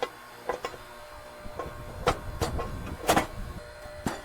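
A series of irregular sharp knocks and clatters, about eight, over a steady low machine hum; the loudest comes about three seconds in.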